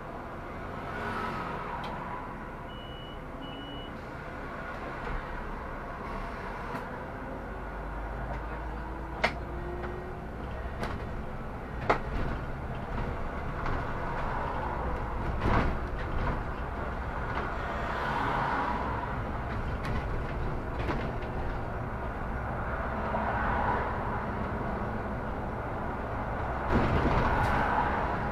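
Solaris Urbino 18 articulated city bus running steadily, with two short high beeps about three seconds in, sharp knocks about nine and twelve seconds in, and a louder rush of noise near the end.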